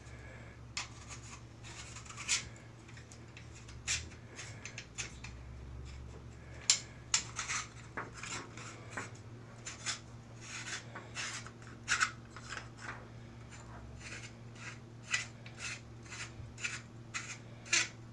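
Plastic dome-camera housing being twisted by hand as its outer locking ring is tightened: short, irregular plastic scrapes and clicks, coming more often in the second half.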